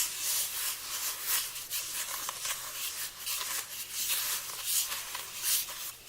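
A wet mix of sand and tacky glue being stirred with a wooden paint stir stick in a container: gritty scraping in quick, uneven strokes.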